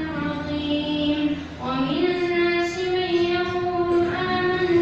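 A boy's voice reciting the Quran in a melodic, drawn-out chant, holding long notes. He breaks briefly for breath about a second and a half in, then rises into a new, higher held note.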